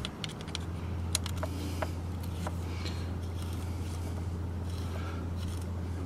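Allen key turning the pad retaining pin into a motorcycle brake caliper: a few sharp little metal clicks and ticks in the first couple of seconds, over a steady low hum.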